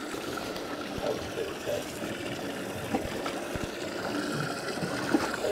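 Water lapping and sloshing against a small boat's hull, with a few light knocks.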